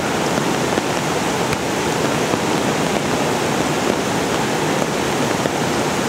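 Waterfall rushing: a steady, even noise of falling water with no let-up.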